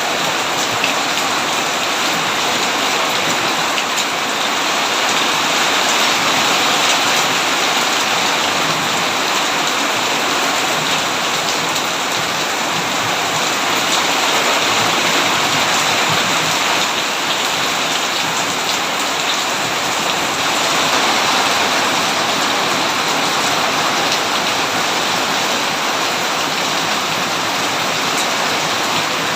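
Steady rain falling: an even hiss with fine scattered drop patter, unbroken throughout and with no thunder.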